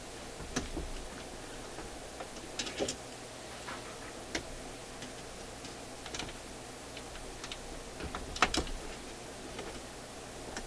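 Irregular small metallic clicks and taps as fingers work a spring onto a record player's mechanism, with the loudest pair about eight seconds in, over a steady low hum.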